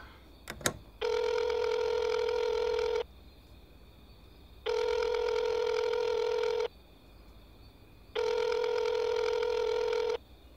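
Telephone ringback tone as an outgoing call rings unanswered: three steady, identical rings of about two seconds each, with short pauses between. A couple of clicks come about half a second in.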